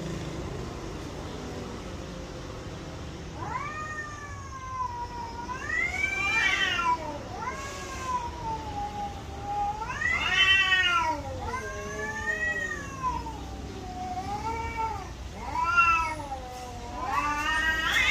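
A domestic cat meowing over and over: a string of long, drawn-out meows that rise and fall in pitch, starting a few seconds in.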